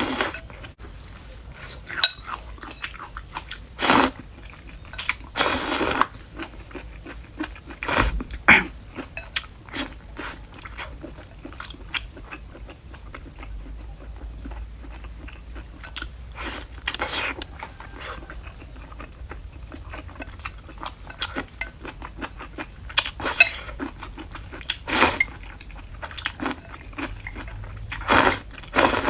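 A person eating close to the microphone: chewing and crunching, with a louder bite or mouth sound every few seconds.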